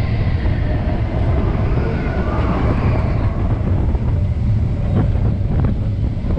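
Roller coaster train rolling along its track: a steady, loud low rumble of the wheels, mixed with wind on the microphone. A faint high squeal runs through roughly the first half.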